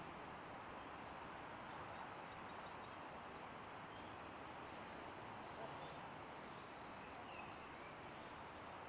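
Steady rushing of a river's flowing water, with faint bird chirps scattered over it.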